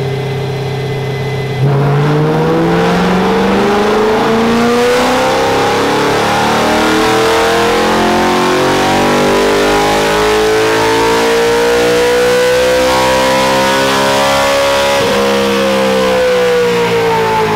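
BMW M3's V8 on a chassis dyno making a full-throttle pull: it runs at low steady revs, then about a second and a half in the pitch climbs smoothly for some thirteen seconds to the top of the rev range and falls away near the end as the throttle is lifted.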